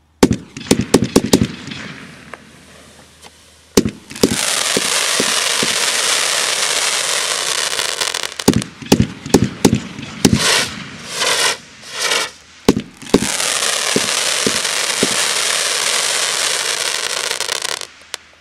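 A 500-gram fireworks cake firing: a quick cluster of sharp bangs, then scattered launch bangs and bursts. Two long loud stretches of dense crackling fill most of the rest, with three shorter swells of crackle between them.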